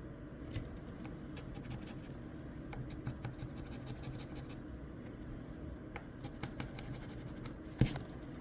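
A Crossword scratch-off lottery ticket being scratched, short irregular runs of scraping strokes rubbing off the coating. A single sharp knock near the end is the loudest sound.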